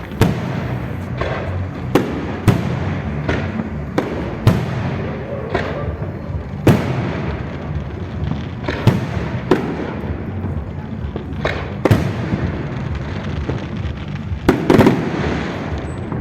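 Fireworks display: sharp bangs going off at irregular intervals, roughly one every second or so, over a steady low rumble, with several close together near the end.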